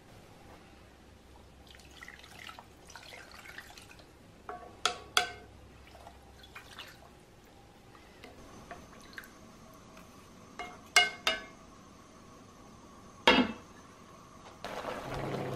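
Kitchen sounds: soft handling noises, then sharp clinks of kitchenware in two quick pairs and a single harder knock. Near the end a steady liquid sound starts up.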